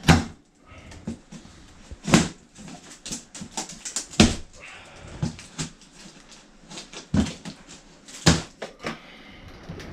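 Cardboard packaging being wrestled open by hand: a run of irregular sharp knocks, thuds and crackles, the loudest spaced a second or two apart.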